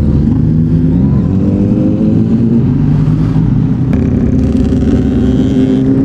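Yamaha MT-09's three-cylinder engine through a Yoshimura R55 slip-on exhaust, riding under way with the revs rising and easing about a second in, mixed with the engines of other motorcycles close by; another engine note joins about four seconds in.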